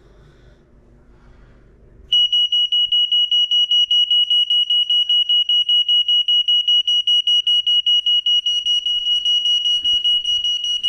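Smoke alarm sounding in a test: a loud, high-pitched, rapidly pulsing beep that starts about two seconds in and continues. The unit is past its expiration date and is still responding to the test.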